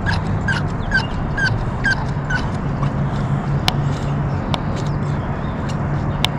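Primer bulb on an Echo PB500T backpack leaf blower being pumped, squeaking about twice a second for six presses, followed by a few sharp clicks.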